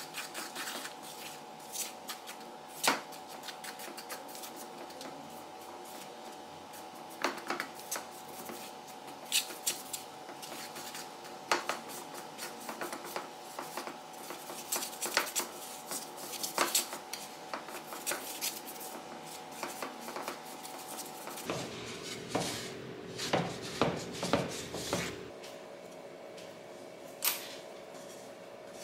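A metal utensil stirring flour and water into a shaggy dough in a wooden bowl: irregular scraping, with many sharp clicks and knocks as it strikes the bowl. A faint steady hum runs underneath.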